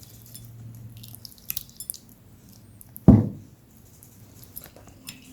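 Kitchen handling sounds: light clicks and taps, and one dull thump about three seconds in, the loudest sound.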